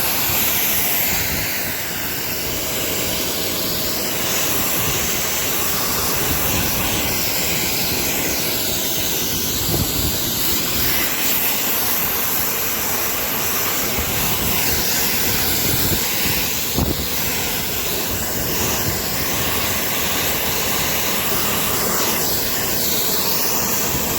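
Ryobi 2300 psi electric pressure washer spraying: a loud, steady hiss of the high-pressure water jet over the running pump, cutting off suddenly near the end.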